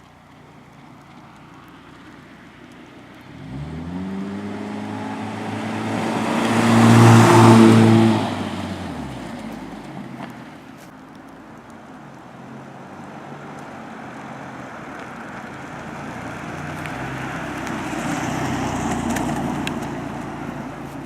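Chevy HHR running through its new GM Performance/Borla aftermarket exhaust: the engine note rises about three seconds in, peaks loudest a few seconds later, then falls away. A second, softer swell of vehicle noise without a clear engine note builds and fades near the end.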